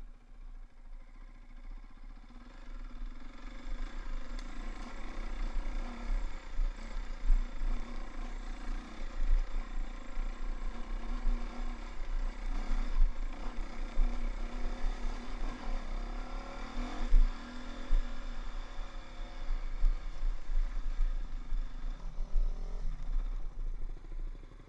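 KTM dirt bike engine running on a rough trail, revs rising and falling with the throttle, picking up about three seconds in. Rattling from the bike over bumpy ground and uneven low thumps come with it.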